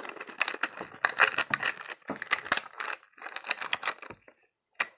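A homemade squishy squeezed in the hands, giving loud, dense crackling and crinkling in about four squeezes, with a short pause near the end.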